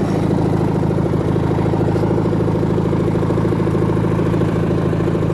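Briggs & Stratton opposed-twin engine of a White LT 1650 lawn tractor running steadily. It sounds not too bad and not very noisy, running pretty well after new fuel line and filter, though it still needs new spark plugs.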